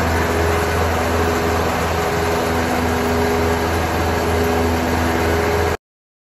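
Troy-Bilt Pony riding mower engine running steadily at close range. It cuts off abruptly near the end.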